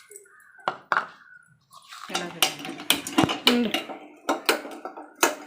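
Kitchen utensils and dishes clinking and knocking against one another in a rapid, irregular series of sharp strikes, denser in the second half, some of them ringing briefly.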